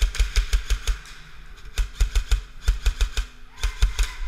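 Airsoft M4 rifle firing in four short bursts of rapid clicks, about ten shots a second.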